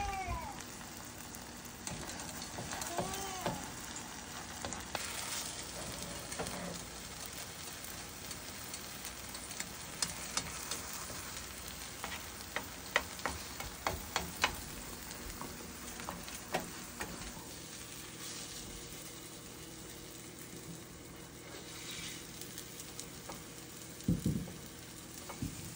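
Omelet sizzling in a nonstick frying pan, with a spatula scraping and tapping against the pan, giving sharp clicks through the middle. A low knock near the end as the pan is handled.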